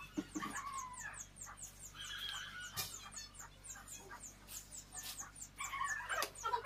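Chickens clucking and calling several times, with quick high chirping running throughout.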